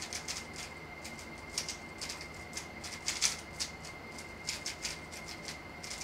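A plastic 3x3 speedcube being turned by hand as a scramble is applied. Its layers give a quick, uneven run of light clicks and clacks as they snap round.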